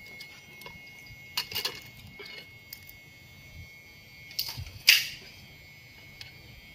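Scattered light clicks and knocks as a set-top box circuit board is handled and set down in its metal case, the sharpest click about five seconds in, over a faint steady high tone.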